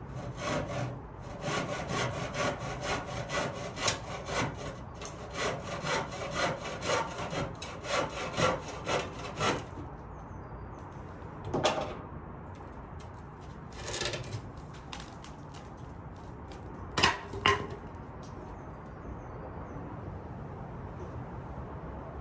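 Hand saw cutting through a lintel, quick back-and-forth strokes about two a second, stopping about ten seconds in. A few separate short scrapes and knocks follow.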